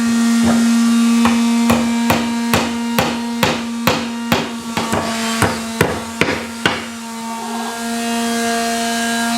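A hammer striking in a steady rhythm, a little over two blows a second, about fifteen in all, stopping about seven seconds in. A steady held tone sounds underneath throughout.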